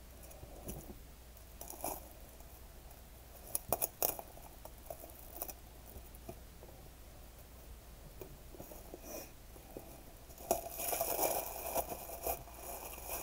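Green glitter ribbon and gift wrap being handled and pulled off a present: soft rustling and crinkling with a few small taps, growing louder for a second or so near the end.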